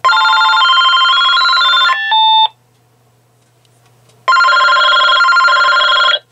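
AT&T EL52419 DECT 6.0 cordless phone ringing with an electronic melodic ringtone: two rings of about two seconds each, a couple of seconds apart. The first ring ends with a short run of different tones.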